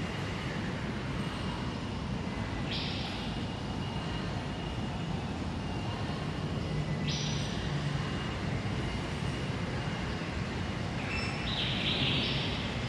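Steady low hum and hiss of indoor room noise with a faint high tone.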